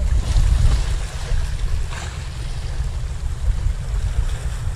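Sea waves washing and splashing against the boulders of a rock breakwater, with one brighter splash about two seconds in. Wind buffets the microphone as a heavy low rumble underneath.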